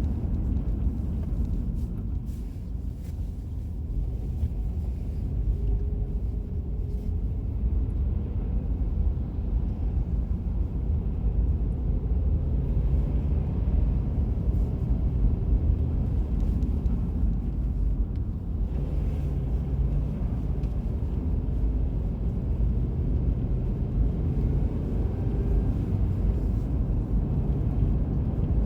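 Steady low road and engine rumble heard from inside a car's cabin while driving.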